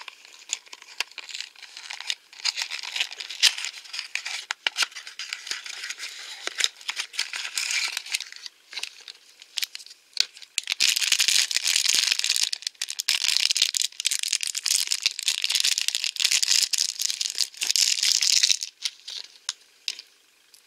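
A small cardboard blind box being opened and handled, with scattered clicks and scrapes. From about ten seconds in, a foil blind-bag packet crinkles continuously for about eight seconds as it is torn open, then the crinkling stops.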